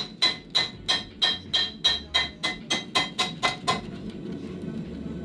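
Blacksmith's hand hammer striking red-hot steel on an anvil in a steady rhythm of about three to four blows a second, each blow with a metallic ring. The blows stop about three-quarters of the way through.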